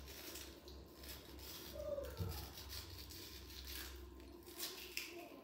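A tablespoon scraping out the inside of a halved, peeled raw potato: a run of faint, irregular scrapes over a low steady hum.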